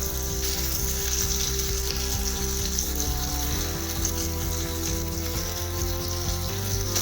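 Ground spice and garlic paste frying with onion and tomato in hot sesame oil in a pan: a steady sizzle.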